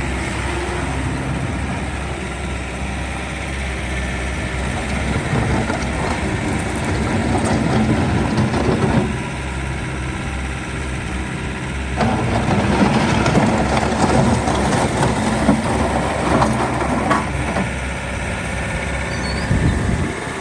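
Bobcat S570 skid steer's four-cylinder diesel engine running, twice working harder for a few seconds with a louder run and rattling and clanking, then settling back to a steady drone.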